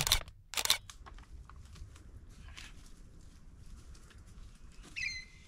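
Two short, loud rustles in the first second, then faint scuffing and rustling as a hiker moves along a bush track. A short, whistled bird call comes about five seconds in.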